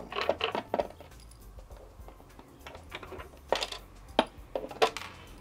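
Small hard clicks and taps of the plastic and metal hinge parts of a Canon CanoScan 4400F flatbed scanner's lid being handled and unclipped. A quick cluster comes in the first second, then three sharp separate clicks near the end.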